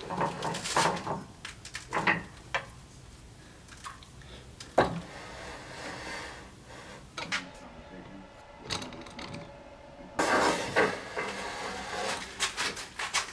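Scattered metal clanks, clicks and knocks from handling and adjusting a drill-holder jig and the lathe's tool-rest fittings, with a longer, denser clatter about ten seconds in.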